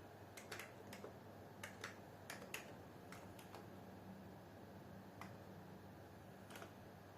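Computer keyboard being typed on: an irregular run of soft key clicks, close together in the first few seconds and then only a couple more, over a low steady hum.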